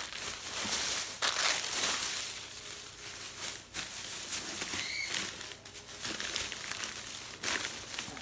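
Plastic shopping bag and packaging crinkling and rustling in uneven bursts as items are rummaged through and pulled out. A brief high chirp about five seconds in.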